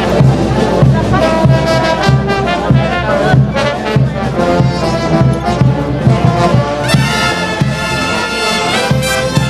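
Brass band playing dance music: trumpets and trombones carry the melody over a steady low beat of about two a second.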